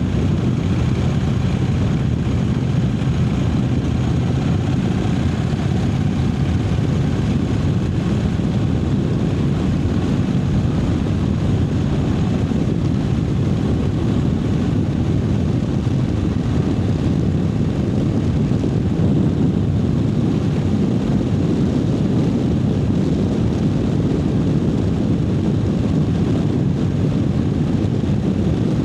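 Triumph Speed Twin 900's 900 cc parallel-twin engine running steadily on the move, with no revving up or down.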